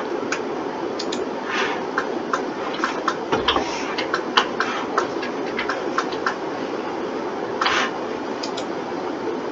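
Irregular clicking of a computer mouse and keyboard, a few sharp clicks a second, with a couple of short scraping sounds, over the steady hum of a computer fan.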